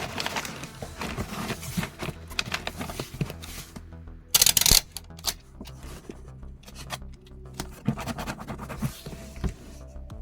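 Background music under the handling noises of packing an order: small clicks, scratches and scrapes, with one loud half-second burst of scraping noise a little past the middle.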